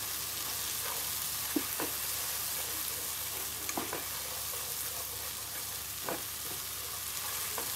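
Silkworms sizzling as they are roasted in a pan, a steady hiss, while tongs stir and toss them, knocking and scraping against the pan now and then.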